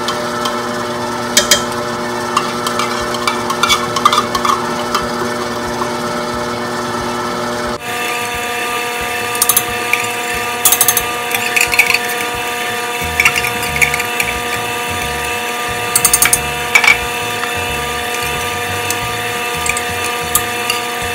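KitchenAid stand mixer running steadily while beating the cream cheese and heavy cream filling. Its motor steps up to a higher pitch about eight seconds in, as at a higher speed setting. Scattered light taps and scrapes of a container against the bowl.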